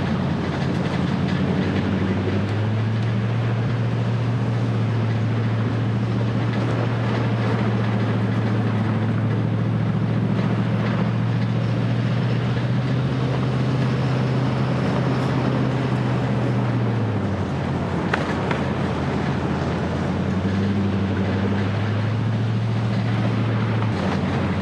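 A vehicle driving along a back road: steady tyre and road noise with a low engine drone. The drone grows stronger about two seconds in, fades around seventeen seconds, and returns for a few seconds near the end.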